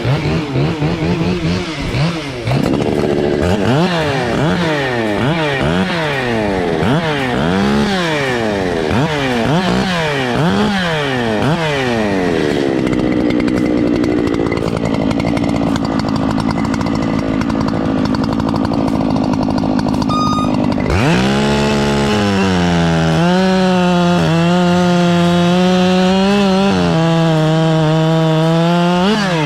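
70cc two-stroke racing chainsaw engines at high revs, the pitch swinging up and down again and again through the first half. About twenty seconds in, the sound changes abruptly to a steady high-revving note that holds with small wobbles.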